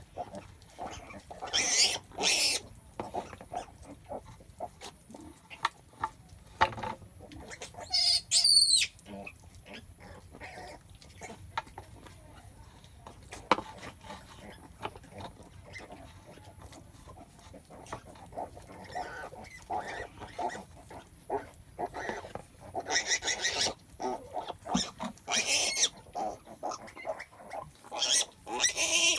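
Pigs at a farrowing, the sow and her newborn piglets, grunting and squealing in short irregular bursts, loudest about two seconds in, around eight seconds in, and in a busier run near the end.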